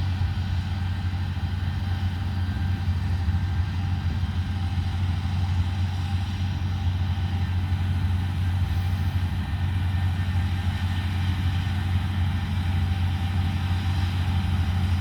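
Steady low drone of a vehicle engine running without change.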